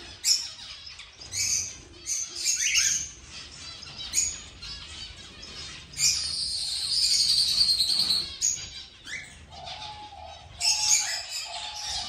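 Aviary birds, cockatiels and small finches, chirping and calling over one another in many short overlapping notes. A dense spell of high chattering comes about six seconds in, and a run of lower repeated calls near the end.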